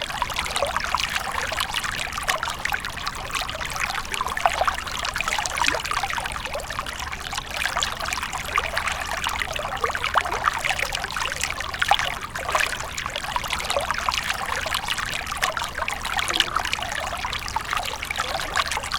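Small brook running over stones: a steady babble and trickle of water with many small, irregular splashes.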